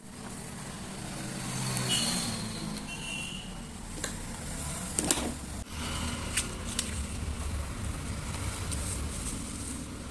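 Steady low rumble of background noise, with a few sharp light clicks and taps in the middle.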